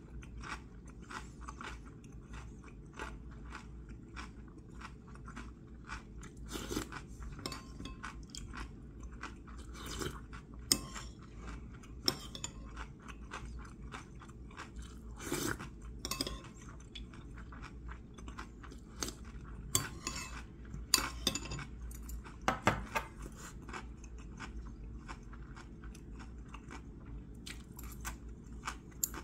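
Close-up chewing and crunching of food, many small crisp clicks, with occasional sharper clinks of metal chopsticks and a spoon against bowls and containers.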